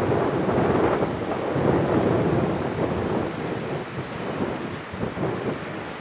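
The Embraer E195-E2's Pratt & Whitney PW1900G geared turbofan engines heard as a loud, rumbling jet roar while the airliner moves along the runway. The roar eases slightly in the second half.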